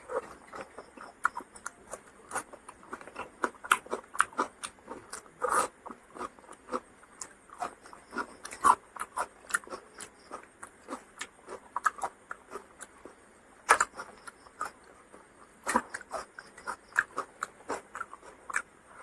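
Close-up chewing and mouth noises of a person eating: irregular smacks and clicks, a few of them louder.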